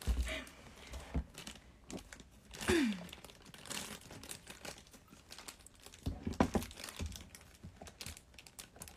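Crinkling and rustling of a snack wrapper being handled while someone eats, with scattered sharp crackles, thickest a little after six seconds. A short falling vocal sound, like a brief laugh, about three seconds in.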